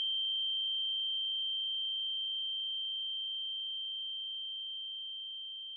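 A single steady high-pitched pure tone on the film's soundtrack, slowly fading, with nothing else beneath it.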